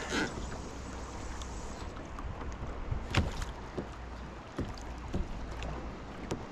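Wind rumbling on the microphone and water slapping against a fishing kayak's hull, with a few scattered light knocks.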